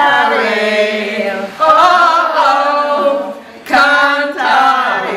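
A group of women singing together without accompaniment, holding sung notes, breaking off briefly about three and a half seconds in before the next phrase.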